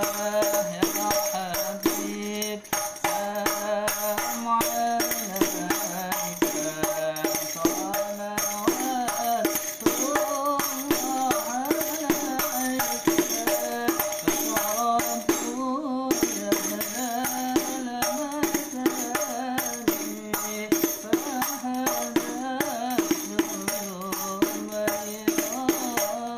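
Rebana, a hand-struck frame drum, played in a steady repeating rhythm (the lanangan pattern), with a man's voice singing along.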